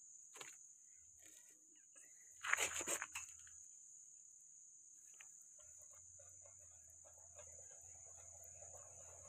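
Faint steady high chirring of crickets, with a brief clatter of a few quick knocks about two and a half seconds in and a small click near the start.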